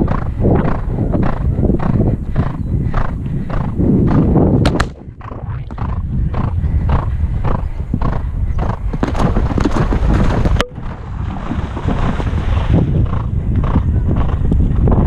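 Horse galloping, its hoofbeats and breathing in a steady rhythm of about two and a half beats a second, with wind rumbling on the helmet camera's microphone. A sharp click about five seconds in and another about ten and a half seconds in.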